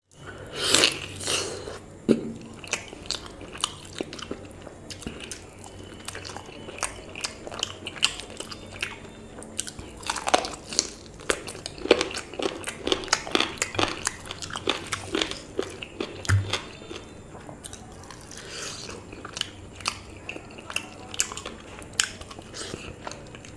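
Close-up eating sounds: biting into a curried chicken leg piece and chewing it with an open mouth, a dense, irregular run of sharp mouth clicks.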